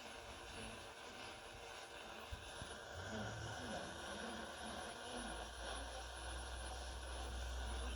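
Steady hiss from a radio's speaker with a very faint voice underneath. A low rumble comes in about five seconds in.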